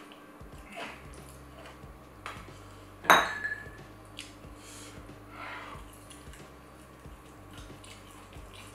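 Cutlery scraping and clinking against a plate. One sharp clink about three seconds in rings briefly.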